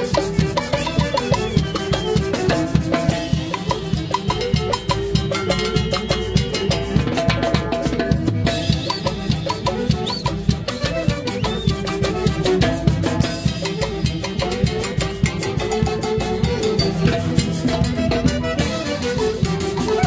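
Live huaylash dance music from a Mantaro-valley orquesta típica: a wind-instrument melody over a steady, driving drum rhythm.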